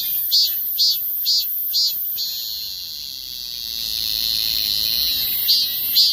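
Korean minmin cicada (Hyalessa fuscata) singing. A run of pulsed calls, about two a second, merges about two seconds in into a steady drone that fades slightly. The pulses start again near the end.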